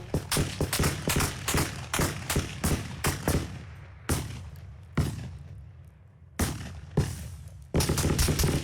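Battle sound effect: a rapid volley of gunshots, then two heavier blasts with long fading tails, a few scattered shots, and dense rapid gunfire again near the end, over a steady low rumble.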